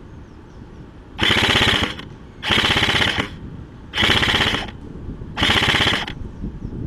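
Airsoft rifle firing four short full-auto bursts, each under a second, a rapid rattle of shots about a second apart, with another burst starting right at the end.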